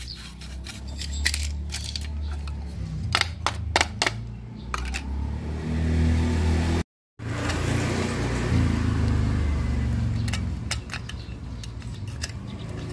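Hands working on an amplifier circuit board: light metallic clinks and taps in the first half, then a steady scratchy hiss with scattered clicks after a brief dropout, all over a low rumble.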